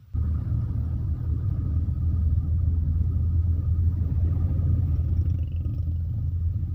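Low, steady rumble of a moving vehicle heard from inside it: engine and road noise on a wet road. It starts abruptly at the very beginning and then holds level.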